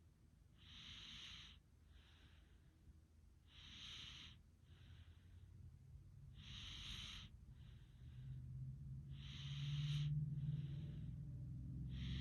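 Slow, rhythmic snoring breaths of a sleeper: a hissing breath about every three seconds with a fainter one between each pair. A low rumble builds underneath from about halfway in.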